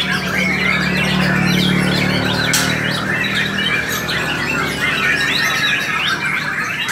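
Many caged white-rumped shamas (murai batu) singing at once, a dense overlapping chorus of chirps, whistles and rattling calls. A low steady hum lies under the first half and fades out a little past the middle.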